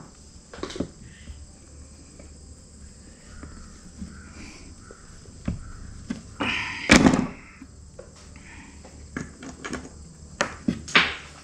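Hand crimping pliers being worked on an insulated wire terminal, with small clicks of tool and wire handling. A louder, longer burst of handling noise comes about seven seconds in, and a few sharp clicks come near the end.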